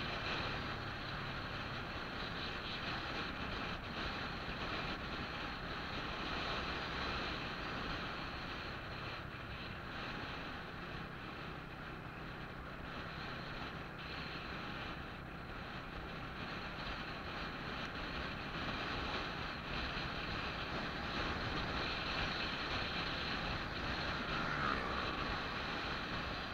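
Steady wind rush on the microphone and road noise of a vehicle driving along a highway, with a brief faint tone about 24 seconds in.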